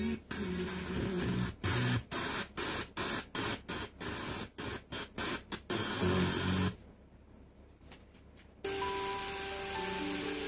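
FM radio tuner of a Yamaha TSX-140 desktop audio system being stepped through frequencies by remote: loud static hiss, muted briefly at each step many times over, then a couple of seconds of near quiet, and music from a station comes in about two-thirds of the way through.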